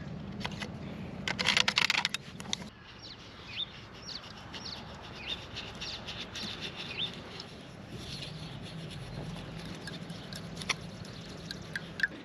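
A Milwaukee Sawzall reciprocating saw runs for the first couple of seconds, loudest as its blade cuts through the water pipe, then stops abruptly. Birds chirp for the rest of the time.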